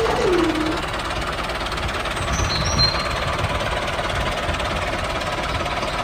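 Small electric gear motor of a toy RC tractor running with a steady rattling buzz. At the start a whine drops in pitch and stops as the tipping trolley comes down.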